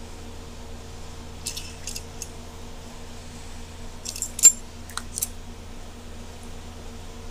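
Light metallic clicks and taps from handling an electric fan's motor assembly and its small parts: a few soft ones about one and a half to two seconds in, then a cluster around four to five seconds in with one sharp click the loudest. A steady low hum runs underneath.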